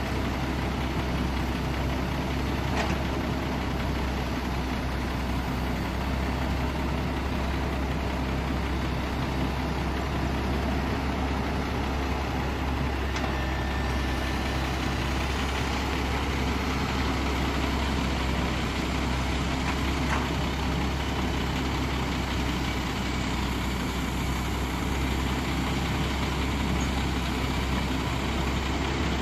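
XCMG XE150D hydraulic excavator's diesel engine running steadily with a low hum while it works its boom and bucket in the dirt.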